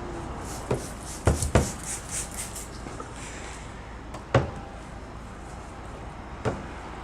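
A handful of sharp knocks and clunks, two close together about a second and a half in and another just past four seconds, with a quick run of short hissing sounds in the first two to three seconds.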